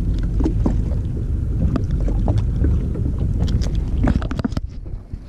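Steady low rumble of a boat at sea with wind on the microphone, and scattered small clicks and knocks from the fish being handled on the line. Near the end the sound drops away briefly and goes muffled.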